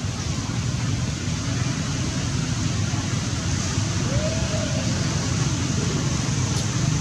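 Steady rushing noise with a deep rumble underneath, and a faint brief rising-and-falling call about four seconds in.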